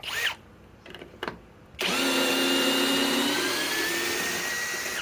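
Master Force Boost cordless hammer drill, set to low speed with pulse mode off, running steadily for about three seconds as it backs out a lag screw. The motor whine starts about two seconds in, after a few light clicks, and stops near the end.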